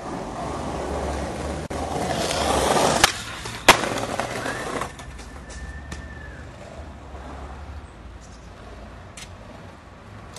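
Skateboard wheels rolling over paving stones, growing louder. About three seconds in, a sharp pop of the tail is followed a moment later by a loud slap as the board lands a trick. The board rolls on briefly, then fades.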